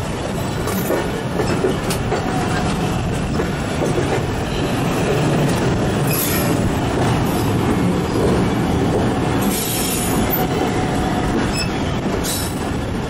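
Jaffar Express passenger coach running on the track, heard from its open doorway: a steady, loud running noise of the wheels on the rails, with a few brief higher hissing surges about six, ten and twelve seconds in.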